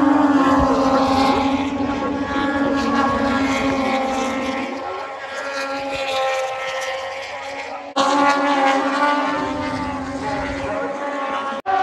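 Racing motorcycle engines at high revs going by on the circuit: a loud, steady engine drone whose notes slowly swell and fade. The sound changes abruptly about eight seconds in and drops out for a moment near the end.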